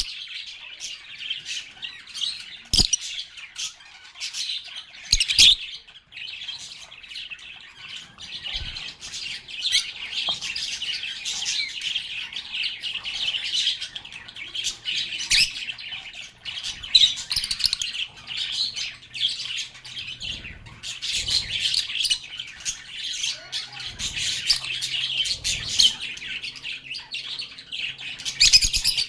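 A group of lovebirds chirping and chattering without a break, high-pitched, with occasional squawks. A few short sharp clicks cut through the chirping.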